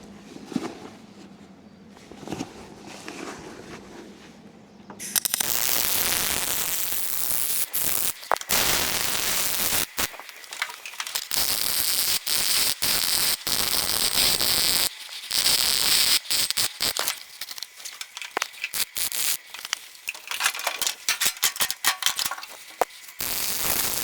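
MIG welding arc crackling and hissing on steel plate. It starts loud about five seconds in and runs in short runs broken by brief stops, as the weld is laid in stop-start stitches.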